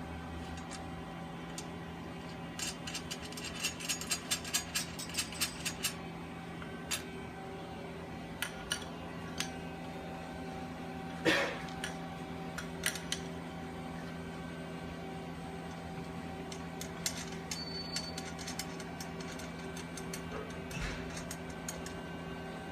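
Light clinks and taps of tools and hardware being handled during equipment assembly: a quick run of small clicks a few seconds in, scattered taps later, and one louder knock about eleven seconds in, over a steady low hum.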